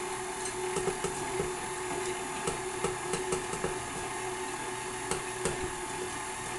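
KitchenAid Artisan stand mixer running with a steady motor hum and whine, its beater turning in the steel bowl. Scattered light knocks come as chunks of boiled potato are tipped from a pot into the bowl.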